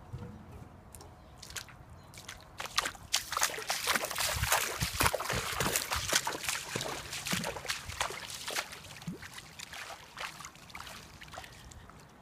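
Footsteps wading through shallow floodwater: a quick, irregular run of splashes and sloshes that builds a couple of seconds in and thins out near the end.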